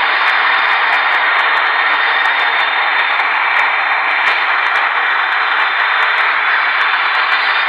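Steady, loud rushing noise, even and unchanging throughout, with a few faint clicks.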